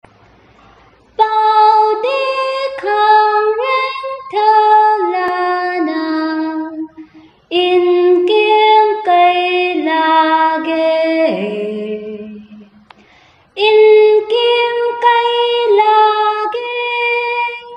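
A young woman singing a slow song unaccompanied, in three phrases of held, stepped notes with short breaks between. The first phrase starts about a second in.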